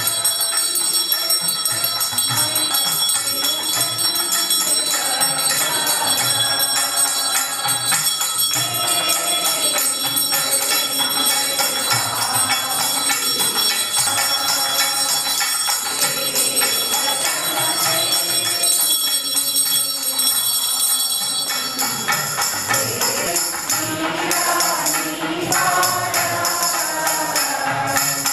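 A hand-held puja bell rung continuously during arati, over music. The ringing goes steadily, then turns broken and uneven after about 22 seconds.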